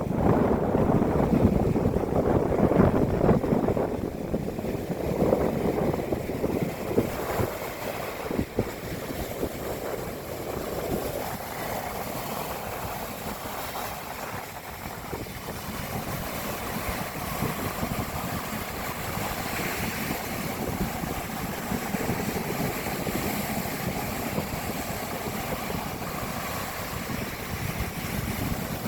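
Rough sea surf churning and breaking under typhoon winds, with wind buffeting the microphone in gusts. Loudest in the first few seconds, then a steadier wash of surf and wind.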